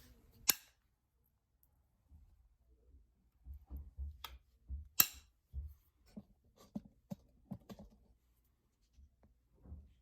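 Flintknapping novaculite: sharp snapping clicks of flakes coming off the stone, the loudest about five seconds in, followed by a run of lighter ticks and soft handling knocks.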